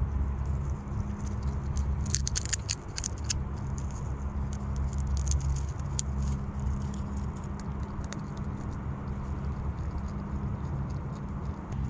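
Prehensile-tailed porcupine chewing crunchy food close up, with sharp crunches coming thickest about two seconds in and a few more scattered after, over a steady low hum.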